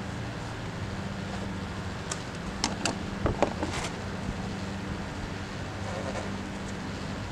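A car engine running steadily with an even low hum, and a handful of sharp clicks and taps around the middle.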